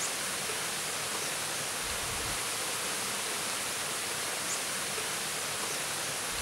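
Steady rushing of flowing water, an even, unbroken wash.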